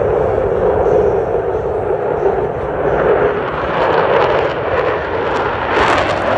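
Loud roar of a Blue Angels display aircraft's engines during a pass. The sound turns harsher and crackly from about four seconds in.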